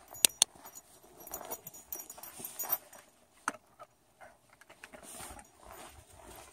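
Footsteps crunching on packed snow as a person and a leashed dog walk, with a faint jingle of the dog's collar tags. Two sharp clicks just after the start are the loudest sounds, and another comes at about three and a half seconds.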